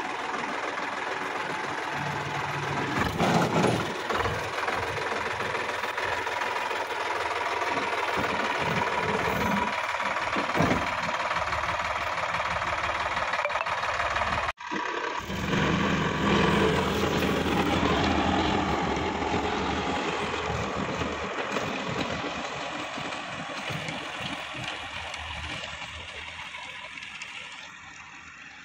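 Sonalika DI-50 tractor's diesel engine running steadily, with a louder stretch a few seconds in and a momentary cut about halfway. It grows fainter near the end as the tractor moves off across the field.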